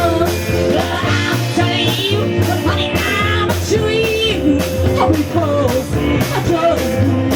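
Rock and roll band music: drums keep a steady beat under a melody line that bends up and down in pitch.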